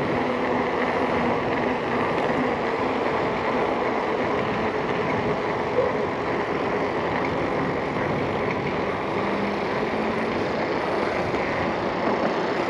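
Mountain bike rolling along a paved street: a steady rush of tyre and wind noise picked up by the handlebar-mounted camera.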